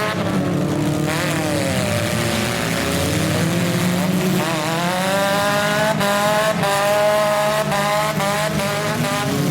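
Demolition derby compact car engines revving hard, their pitch rising and falling again and again, with several sharp bangs of car-on-car impacts in the second half.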